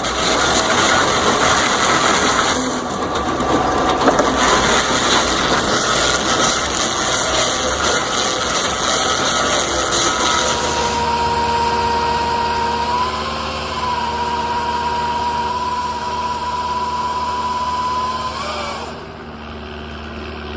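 Heavy machinery running: dense, loud machine noise for about ten seconds, then a steady engine with a held whine that wavers slightly in pitch.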